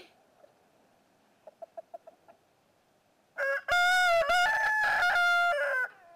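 A few soft chicken clucks, then a rooster crowing once, loud, for about two and a half seconds, its pitch stepping through the phrases of the crow.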